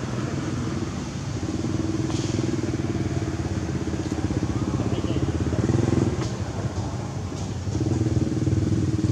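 An engine running steadily with an even low pulsing, briefly quieter about two-thirds of the way through.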